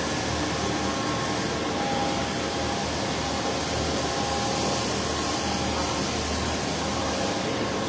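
Steady machine-like hum and hiss of a large packing shed, with a few faint thin tones over it and no clear single event.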